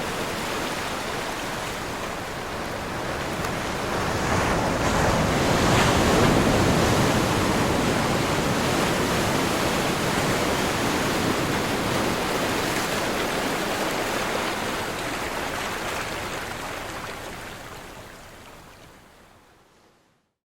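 Ocean wave surging in and breaking, building to its loudest about six seconds in, then washing out and fading away to silence near the end.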